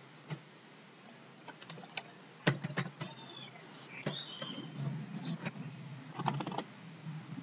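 Computer keyboard being typed on: scattered single key clicks, with a quick run of several keystrokes about two and a half seconds in and another near the end.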